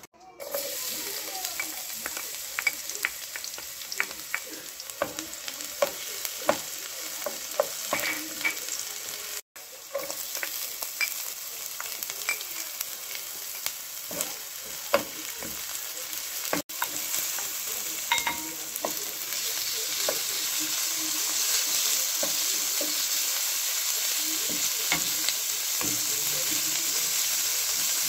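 Chopped garlic and onion, then minced pork, sizzling in hot oil in a nonstick wok, with a steady hiss and frequent sharp clicks and scrapes of a wooden spatula stirring them. The sizzle grows louder about two-thirds of the way through, and there are two very brief drop-outs.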